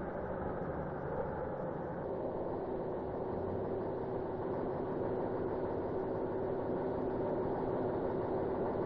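Heavy road tractor's engine running steadily as it tows a heavy-load trailer, a continuous drone with a change in tone about two seconds in.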